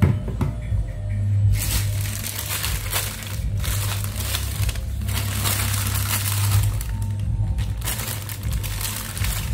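A thin white bag crinkled and crumpled in the hand: spells of rustling that begin about a second and a half in, broken by short pauses, under steady background music.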